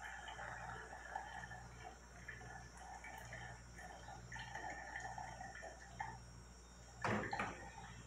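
Coffee trickling and dripping through a cloth coffee strainer into a thermos, faint and irregular. A short, louder clatter about seven seconds in.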